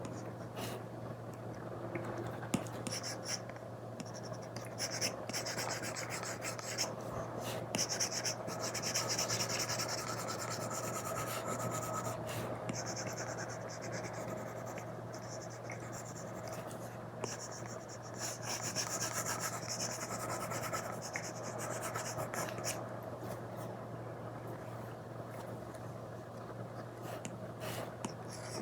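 Apple Pencil tip drawing on an iPad screen covered with a paper-like film: scratchy rubbing strokes in stretches of a few seconds, some longer, some short, over a steady low hum.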